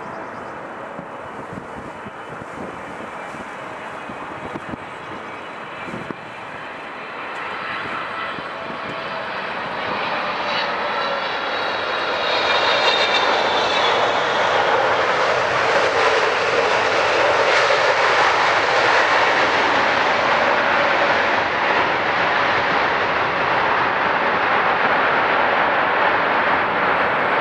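Boeing 777's twin jet engines on landing: engine noise grows steadily louder over the first twelve seconds or so, with whistling tones gliding in pitch, then settles into a loud, steady rush as the airliner rolls out on the runway, typical of reverse thrust after touchdown.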